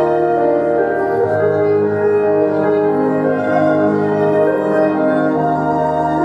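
Instrumental music with long held notes over a low bass line that shifts about a second in and again near the end, with no singing.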